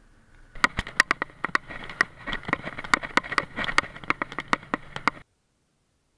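Motorcycle riding over a rough road, picked up by a bike-mounted camera as irregular sharp knocks and rattles over a rushing noise. It starts about half a second in and cuts off abruptly a little after five seconds in.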